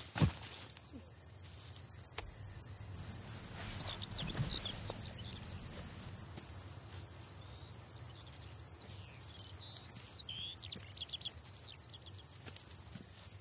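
Open-field ambience: birds chirping in short calls and glides, with a quick run of chirps near the end, over a faint insect buzz and a low steady rumble. A single sharp knock comes right at the start.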